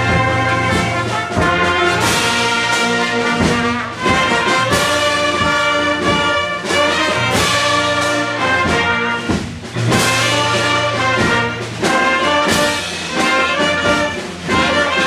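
A live brass band playing a tune: sustained brass notes over a steady low bass line, with regular hits keeping the beat.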